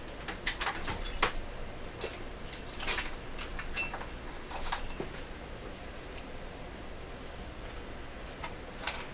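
Small metal screws and parts clinking and rattling, a scatter of short sharp clicks, as they are handled and picked through while looking for a screw that fits a radio's antenna mount.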